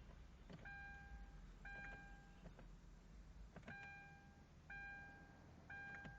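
Hyundai Genesis Coupe's dashboard warning chime beeping faintly, one steady tone of one pitch about once a second, each beep led by a soft click, over a low steady hum.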